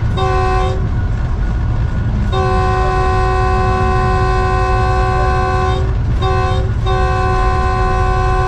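Locomotive's multi-tone horn heard from inside the cab over the loud running rumble of the locomotive: a short blast, a long one of about three and a half seconds, another short one, then a long blast that carries on. It is sounded as the train passes through a station.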